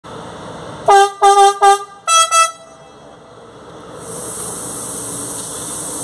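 Electric commuter train's horn sounding three short blasts, then two shorter, higher-pitched blasts. A steady high hiss follows near the end.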